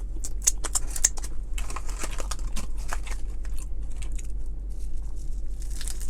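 Paper fast-food wrappers and bag crinkling and rustling in quick, irregular bursts as the food is handled, over a steady low hum.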